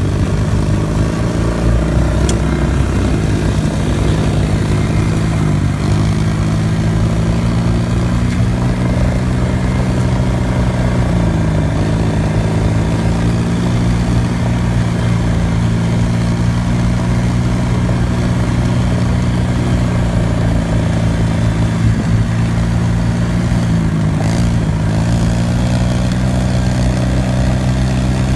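Dirt bike engine running steadily under way, heard from the rider's seat. Its pitch dips briefly three times and comes back up.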